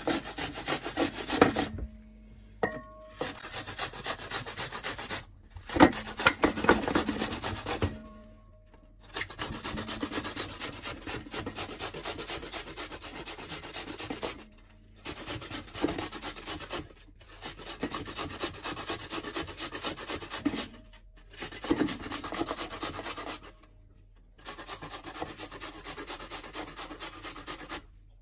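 An unpeeled apple being grated by hand on a stainless steel box grater: runs of fast rasping strokes, stopping briefly every few seconds.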